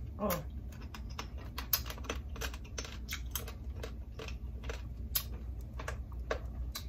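Eating noises from a spicy crawfish and shrimp seafood boil: a run of irregular small clicks and smacks, several a second, from shells being worked and mouth sounds, with a short falling hum just after the start.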